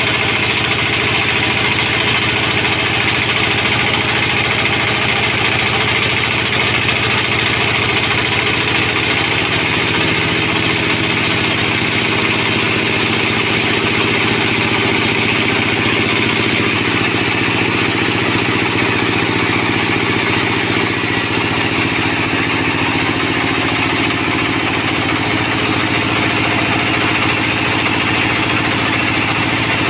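Sawmill band saw running steadily, its blade cutting lengthwise through a sonokeling (Indian rosewood) log as the carriage feeds it past.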